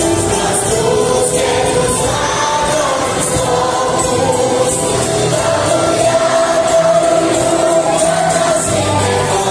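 Large children's choir singing a Greek song, with sustained sung phrases over a steady musical backing.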